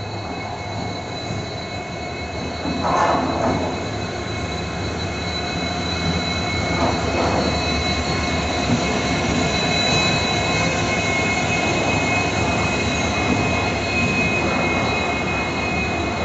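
Indian Railways WDP-4D two-stroke diesel locomotive passing slowly past a platform, engine running with a dense rumble and steady high-pitched wheel squeal. It grows louder about three seconds in, then holds.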